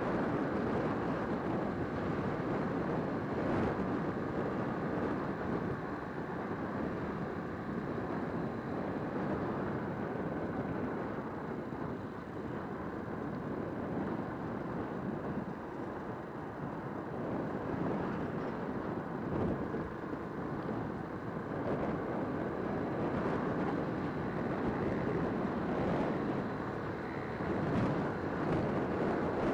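Wind rushing over the microphone on a motorcycle cruising at about 50–60 km/h, with the engine and tyre noise blended into a steady rumble underneath.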